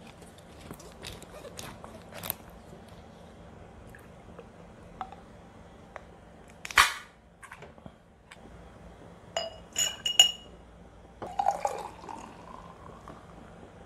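Small clicks, then an aluminium beer can opened with one short hiss about seven seconds in. Around ten seconds come two or three ringing glass clinks, then beer is poured from the can into a glass, the pour's pitch rising as the glass fills.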